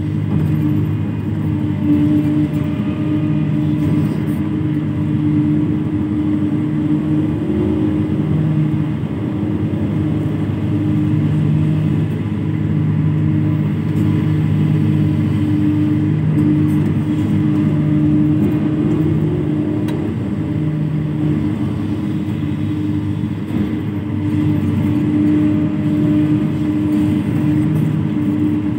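Komatsu PC300 hydraulic excavator's diesel engine running at a steady working speed while the machine digs and swings its bucket.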